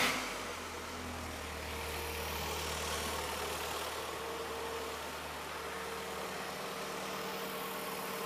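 Rover 16-valve twin-cam four-cylinder petrol engine idling just after starting. It settles from its start-up speed in the first second, then runs steadily and normally while fed only by a carbon-cleaning fuel dispenser in place of its own fuel supply.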